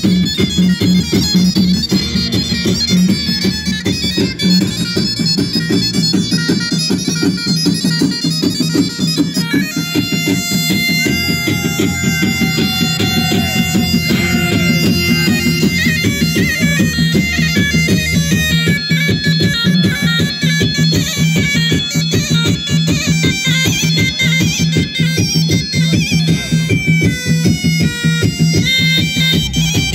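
Loud Turkish folk dance music: a reedy, bagpipe-like melody over a held drone and a fast, steady beat, its tune changing about a third of the way in and again around two-thirds.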